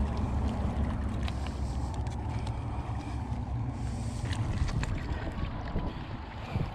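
Wind buffeting the microphone, a steady low rumble, with a few faint clicks and taps over it.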